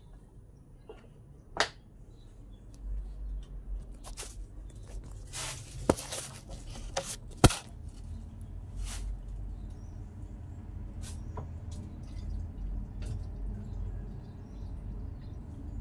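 Water dripping: scattered, irregular sharp drips and taps, the loudest about seven seconds in, over a steady low rumble.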